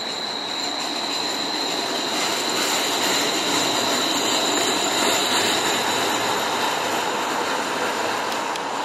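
Low-floor articulated streetcar rounding a tight curve, its steel wheels squealing on the rails in a steady high-pitched tone over the rushing noise of the car running. It grows loudest about midway, then eases off.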